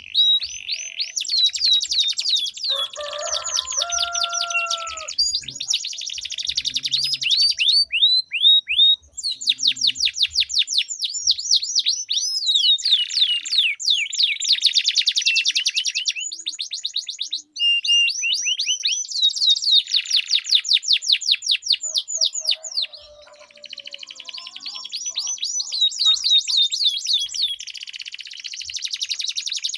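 Domestic canaries singing long rolling trills: fast strings of repeated high, downward-sweeping notes, one trill running into the next with only a few short breaks. A lower, steadier two-note phrase cuts in a few seconds in.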